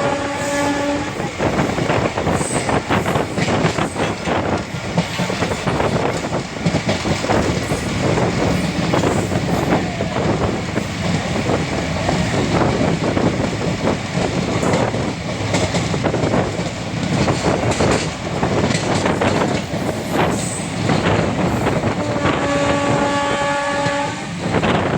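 Running noise of an ICF passenger coach heard from aboard: steady wheel and track rattle with clickety-clack. The WAP-4 electric locomotive's horn ends about a second in, then sounds again near the end for about two seconds.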